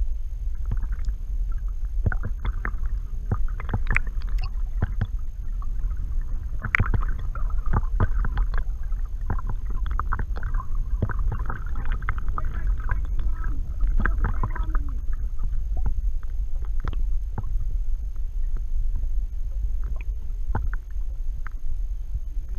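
Humpback whale song heard underwater: wavering, drawn-out calls from about a second in until about fifteen seconds in, with lower falling moans near the end of that stretch. Under it runs a steady low water rumble with scattered clicks.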